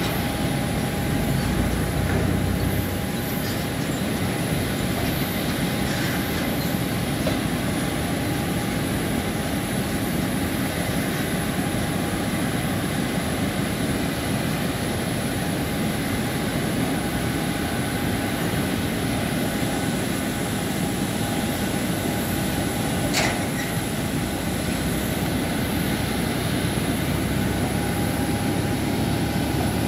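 Steady rushing drone with a constant thin whine from a parked Boeing 737-900ER airliner, with one short click late on.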